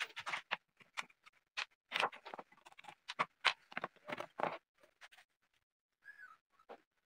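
Quick, irregular clicks and knocks of small metal and wooden parts handled on a plywood workbench as a wooden miter gauge is taken apart. The clicks are dense at first and thin out after about four and a half seconds.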